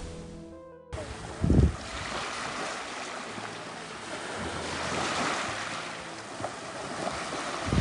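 Sea waves washing onto a shore: a steady rush that swells about five seconds in, with a gust of wind thumping on the microphone about a second and a half in.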